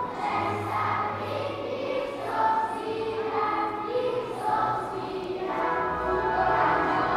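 Children's choir singing, holding long notes over a steady low accompaniment.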